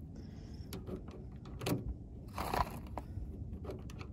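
.22 LR cartridges being pressed one at a time into a ProMag 18-round Glock 44 magazine, giving a handful of short clicks and scrapes as each round is pushed down against the stiff magazine spring.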